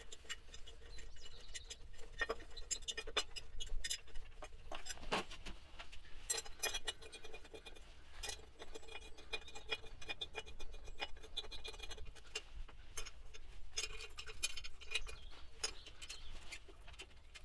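Irregular metallic clicks, taps and light scrapes of hand tools and bolts being handled in a car's engine bay, some in quick clusters, over a faint steady hum.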